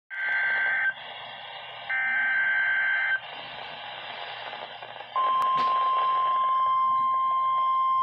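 NOAA Weather Radio Required Weekly Test coming through a Midland S.A.M.E. weather alert radio's speaker. First come two short buzzing bursts of digital SAME header data, each about a second long with a high whistle, with radio hiss between them. About five seconds in, the steady single-pitch warning alarm tone starts and holds, with a brief click just after it begins.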